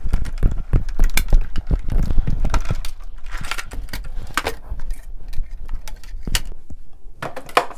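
Paper-craft die-cutting machine pressing a balloon die through a sheet of paper: a rapid run of clicks and knocks over a low rumble, heaviest in the first three seconds.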